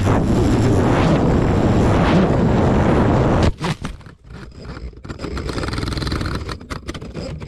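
FPV racing drone's motors and propellers with wind rushing past in a fast dive, a loud steady noise that cuts off abruptly about three and a half seconds in as the drone goes into brush. A few sharp knocks and snaps follow, then a quieter hiss with scattered clicks.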